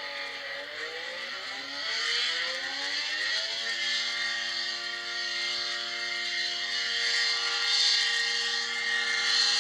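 ACA Cyclone tornado warning siren sounding a low wail: its pitch dips just after the start, climbs over about three seconds, then holds steady, over a rushing hiss that grows louder and fainter.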